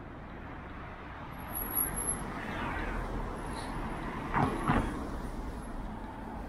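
Downtown street traffic: cars driving past close by, the noise swelling about two seconds in as a car approaches, with two quick thumps about four and a half seconds in.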